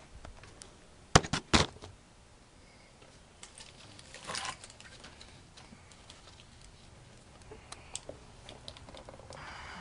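Hands working among parts and wiring in a car's engine bay: a quick run of four sharp plastic-and-metal clicks about a second in, a short scrape a few seconds later, then scattered light ticks and handling noises.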